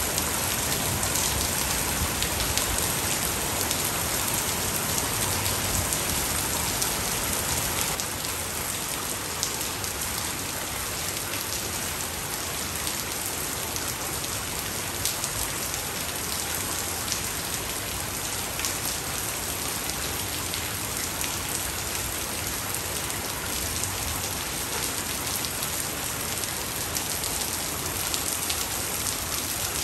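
Heavy rain falling steadily: a dense hiss of countless drops striking surfaces, easing off slightly about eight seconds in.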